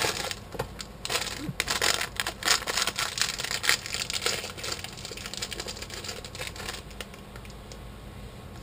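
Snack wrapper crinkling and tearing as it is pulled open by hand, a dense crackle for the first few seconds, then lighter rustling as the packet is handled.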